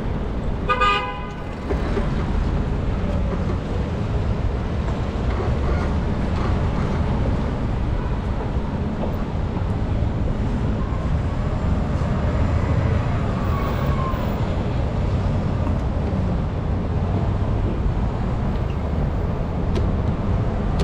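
Wind rushing over a bike-mounted action camera's microphone while riding, a steady low rumble. About a second in there is a short horn toot.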